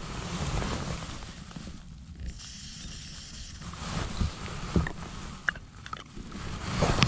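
A short hiss of an aerosol spray can, lasting about a second and starting a bit over two seconds in, over low wind rumble on the microphone. A few light clicks of fishing gear being handled follow.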